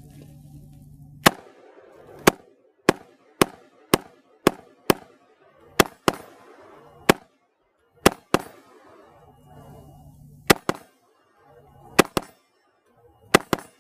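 Beretta ARX 100 rifle, iced over after being soaked with water and frozen, firing semi-automatic shots one after another, about eighteen, at an uneven pace of roughly one every half second to second, some in quick pairs. Each shot cycles the action despite the ice.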